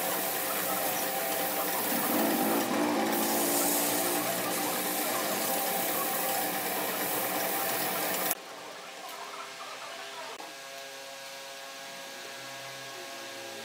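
Wood lathe running with sandpaper held against the spinning wooden vase, a loud, steady hissing rub. It cuts off abruptly about eight seconds in, leaving a much quieter steady hum.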